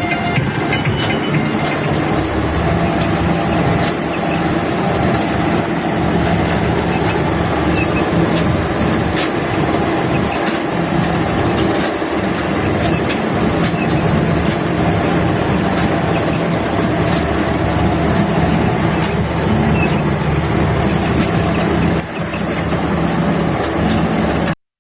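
Rice combine harvester running steadily under load, its engine and threshing machinery making a continuous loud mechanical noise with occasional sharp clicks. The sound cuts off abruptly near the end.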